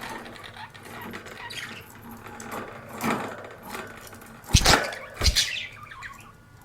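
Budgerigars chirping and chattering in short, scattered calls, with two loud thumps about half a second apart a little past the middle.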